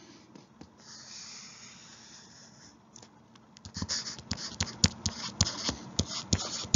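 A soft hissing rustle for about two seconds, then, from about three and a half seconds in, a quick run of sharp clicks or taps, three or four a second.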